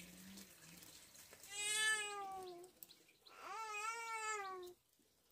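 Domestic cat meowing twice, each meow long and drawn out, holding its pitch and then falling slightly at the end.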